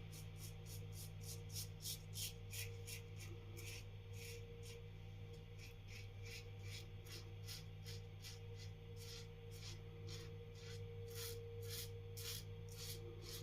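Parker 65R safety razor scraping through lathered stubble in short, quick strokes, about three a second, on a pass across the grain.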